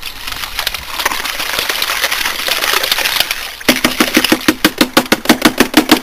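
Sodium bicarbonate powder poured from a cardboard box into a chest freezer full of water, a hissing splash with scattered clicks. About three and a half seconds in, it gives way to a fast, even run of sharp knocks, about five a second.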